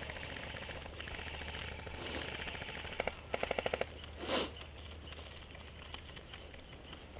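Airsoft gun firing: two single shots, then a rapid full-auto burst of about eight shots in half a second. A louder short noise follows about a second later.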